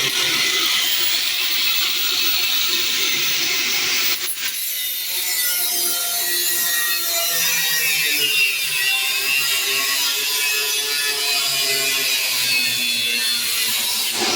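Power tool cutting out a sheet-steel patch panel, its motor note drifting up and down as it loads, with a brief break about four seconds in.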